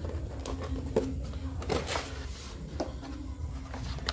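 Corrugated cardboard box opened by hand: a few knocks and clicks, with a longer scraping rustle about two seconds in as the lid flap comes free, then power cables inside are handled.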